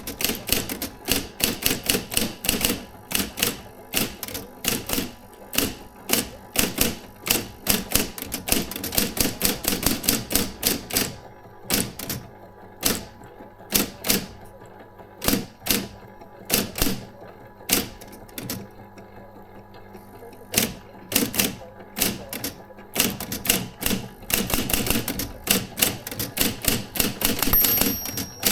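Adler Junior Electric electric typewriter being typed on: rapid keystrokes, thinning out and stopping for a few seconds a little past the middle, then picking up again. A brief high steady tone sounds near the end.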